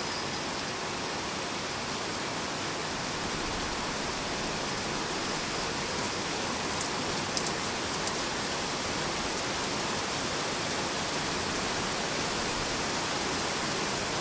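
Steady heavy rain falling, an even hiss with a few sharp drip ticks about halfway through.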